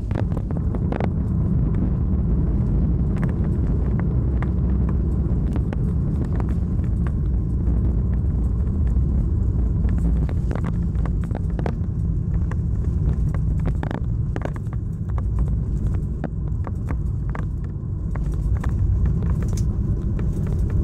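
Boeing 737-700 cabin noise during the landing rollout: a steady low rumble of the wheels on the runway and the engines, with scattered light rattles and knocks.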